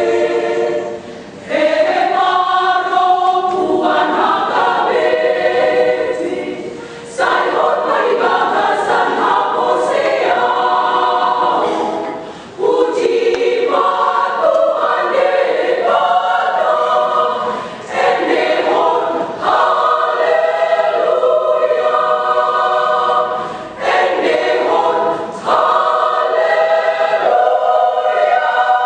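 Women's choir singing in parts, in sustained phrases broken by brief pauses for breath about every five to six seconds.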